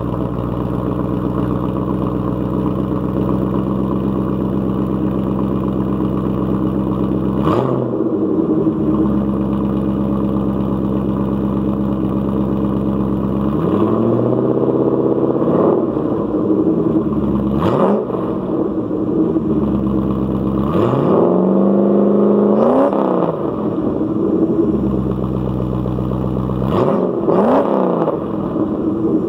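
A 1979 Porsche 928's 4.5-litre V8 with the muffler deleted, idling steadily and revved several times. There is a quick blip about seven seconds in, longer revs held briefly in the middle, and two quick blips near the end.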